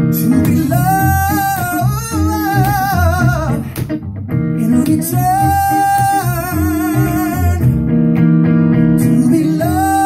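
A male vocalist singing live over a small band with plucked strings, holding long notes with vibrato. There is a short break in the voice near the middle, and he swells into a long held note near the end.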